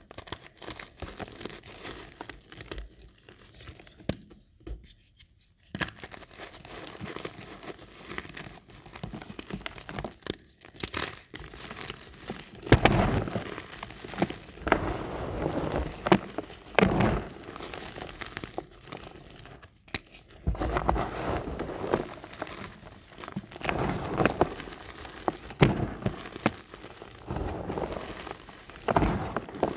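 Reformed gym chalk crushed and crumbled in the hands: a dry crackling crunch of chalk lumps and powder, with louder squeezes in the second half.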